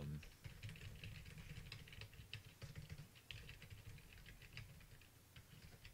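Faint typing on a computer keyboard: quick, irregular key clicks as a line of text is typed.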